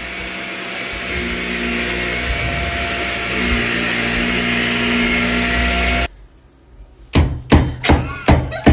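A vacuum cleaner motor running steadily with a whirring hum, then switched off abruptly about six seconds in. About a second later come rapid, evenly spaced knocks, about two and a half a second.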